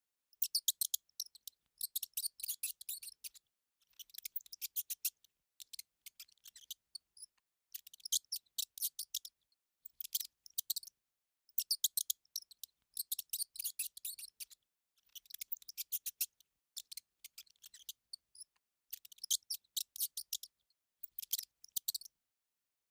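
A mouse squeaking: quick runs of thin, very high squeaks, each run about a second long with short pauses between, stopping shortly before the end.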